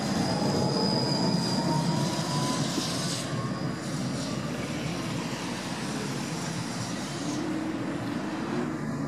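New Electron T3L441 low-floor tram pulling away along the track, its wheels running on the rails with a faint rising whine from its motors in the first couple of seconds. The sound fades steadily as the tram draws away.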